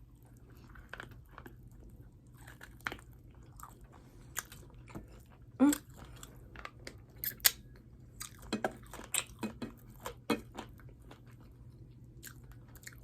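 A person chewing and smacking on hot wings: irregular wet mouth clicks and smacks, loudest a little past halfway through.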